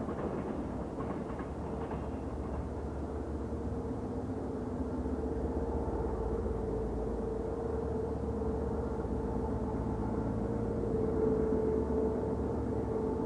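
Two DF4B diesel-electric locomotives (V16 diesel engines) working hard uphill with a freight train, heard from afar: a steady engine drone with a held hum, growing a little louder near the end.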